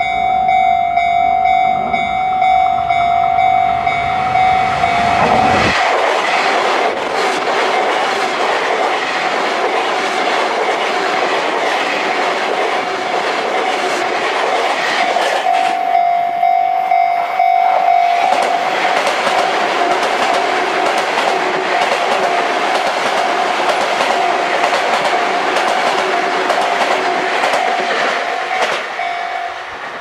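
A Japanese level-crossing warning bell rings steadily while a ten-car Sotetsu 9000 series electric train runs past over the crossing. The train noise builds up about five seconds in, and both the bell and the train fade near the end.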